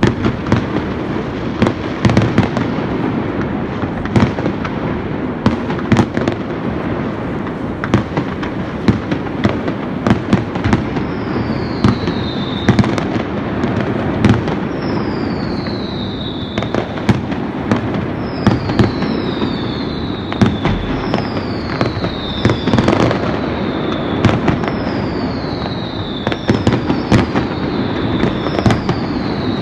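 Fireworks display: a dense string of sharp bangs over a continuous rumble. From about a third of the way in, short falling whistles repeat every second or two among the bangs.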